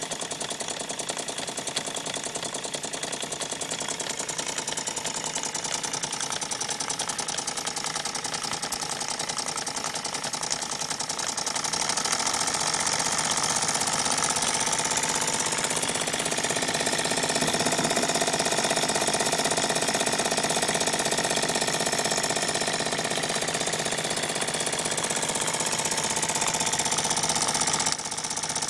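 Small model horizontal steam engine running steadily, a fast, even clattering beat with a hiss over it. It grows louder about halfway through, then drops suddenly near the end as its brass valve is turned by hand.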